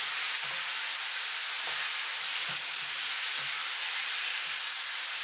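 Chicken drumsticks and seasoning sauce sizzling steadily in hot oil in a frying pan while being stirred with a spatula, with a few faint knocks of the spatula against the pan.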